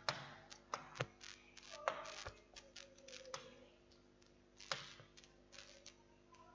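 Scattered sharp clicks and light taps, spaced irregularly and fewer in the middle, from working the drawing tools of a computer whiteboard.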